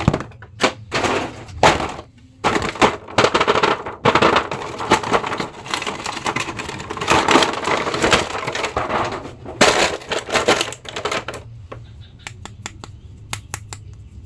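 Thin clear plastic blister packaging crackling and crinkling as it is handled and flexed, ending in a few separate sharp clicks.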